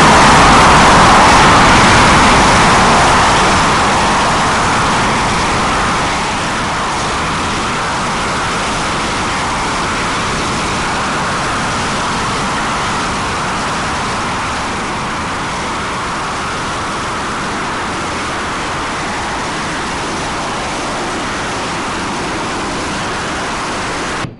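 SEPECAT Jaguar jets on the runway: the steady jet rush of their twin Rolls-Royce Turbomeca Adour turbofans. It is loudest at first and eases a little about six seconds in.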